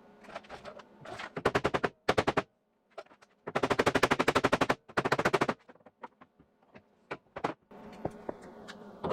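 Four bursts of rapid, evenly spaced sharp clattering, roughly fifteen strokes a second, from a power tool working on a car body's sheet metal.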